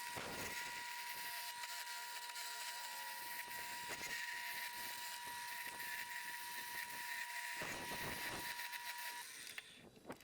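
Wood lathe turning a mahogany handle blank: a steady high-pitched whine under a hiss of the tool cutting, with a few brief knocks. The whine cuts off near the end.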